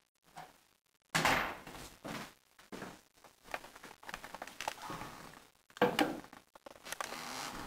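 A wooden door shuts with a thud about a second in, followed by shuffling footsteps, rustling and light knocks, and a sharper knock just before six seconds as a glass jar is set on a tabletop.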